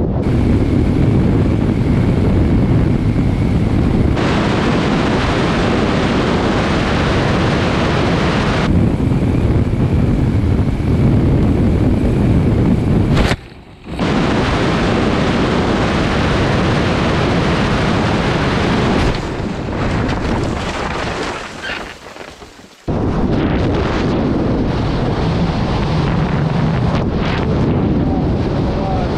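Heavy wind noise buffeting the microphone as air rushes past in flight. It cuts out sharply for a moment about halfway through, thins and fades for a few seconds about two-thirds in, then comes back as loud as before.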